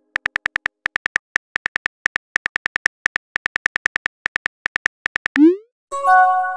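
Simulated phone keyboard clicks tapping out a text message in quick succession, about seven or eight a second. About five and a half seconds in, a short rising swoosh plays as the message is sent, followed by a brief chime of several steady tones.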